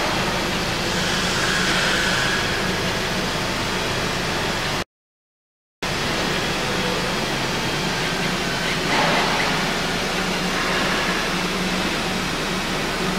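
Steady hissing machine noise with a low hum from a CLOOS ROMAT 350 welding robot installation. The sound cuts out completely for about a second a third of the way in, then resumes.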